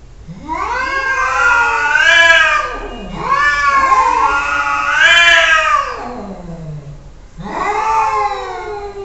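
Domestic cat yowling: three long, drawn-out meows, each rising and then falling in pitch, the last one sliding down low.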